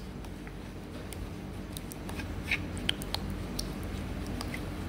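Clay casting slip being stirred by hand in a plastic bucket as sodium silicate thins it: soft wet squishing with scattered light clicks of the stirring tool against the bucket, over a low steady hum.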